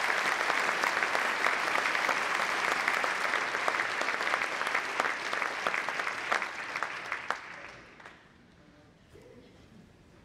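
Audience applauding, the clapping dying away about eight seconds in.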